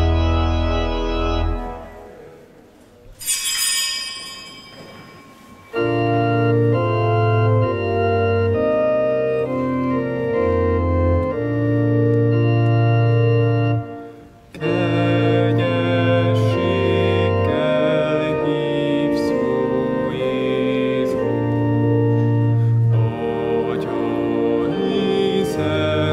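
Organ music in slow, sustained chords. It breaks off about two seconds in, resumes a few seconds later, pauses briefly again about halfway, and then continues with a higher wavering melody over the chords.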